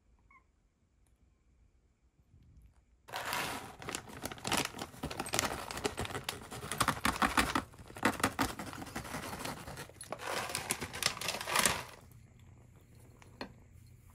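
Crinkling and rustling with many quick crackles, starting suddenly about three seconds in and stopping about twelve seconds in.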